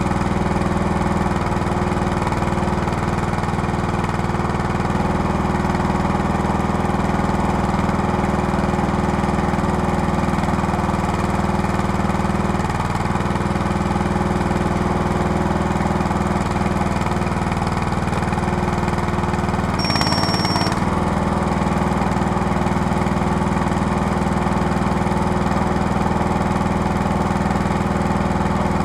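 Small petrol engine of a homemade hydraulic log splitter running steadily, its note shifting slightly a few times as the splitter works. A short high-pitched tone sounds briefly about two-thirds of the way through.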